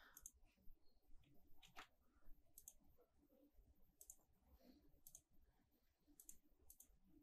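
Faint computer mouse clicks, about half a dozen spread over several seconds, against near silence.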